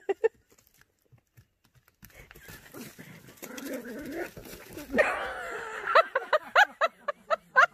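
Small dog whimpering, then yipping in quick, high-pitched yips, about three a second, from about six seconds in.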